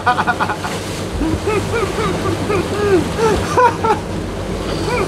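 People laughing hard, a string of short rising-and-falling laughs, over steady wind and sea noise.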